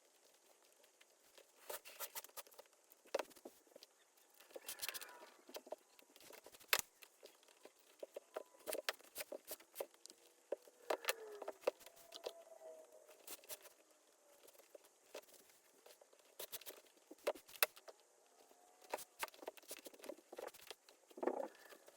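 Hands working a leather baseball glove: scattered clicks and taps, with short squeaks of leather rubbing on leather several times.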